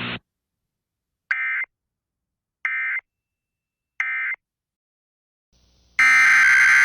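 Emergency Alert System end-of-message code: three short buzzy digital data bursts about a second apart, marking the end of the alert. Near the end, a louder electronic tone lasts about a second.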